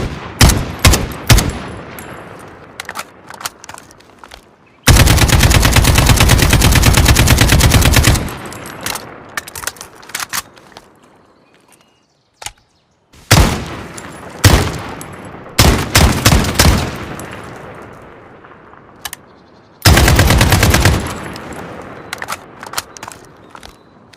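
AK-47 rifle firing: several single shots, then a long full-automatic burst of about three seconds, more shots in short strings, and another automatic burst near the end. Each shot trails off with echo.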